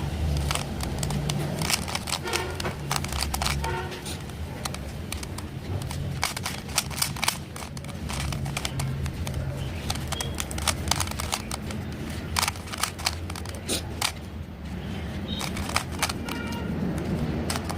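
A Rubik's cube being turned by hand, its plastic layers clicking and clacking in quick irregular runs of turns, over a low steady hum.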